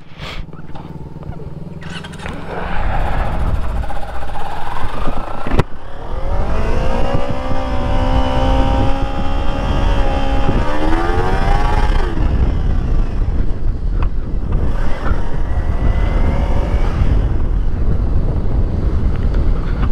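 Sport motorcycle engine at a low hum, then pulling away: the engine note climbs steadily over several seconds, breaks at a gear change about ten seconds in, and settles into a steady low rumble as the bike rides on.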